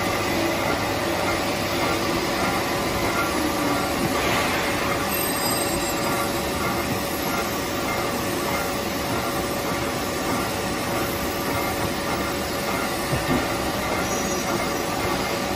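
Semi-automatic folder-gluer for cardboard boxes running steadily: a continuous mechanical noise from its conveyor belts and rollers feeding folded carton blanks, with a steady hum and one short knock near the end.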